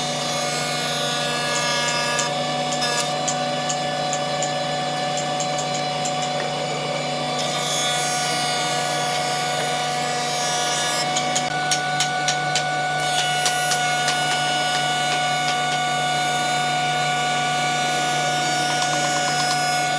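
Industrial thickness planer running steadily with a hum of constant tones as a hardwood block is fed through its cutter head. Bouts of sharp ticks come a couple of seconds in and again about halfway through.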